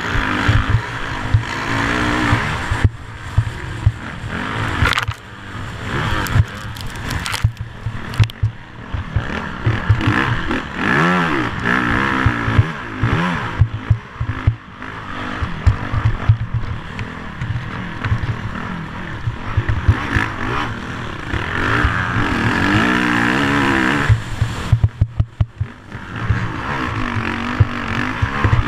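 A vehicle engine revving up and down over and over as it is driven, heard from on board, with rumbling wind on the microphone and scattered knocks.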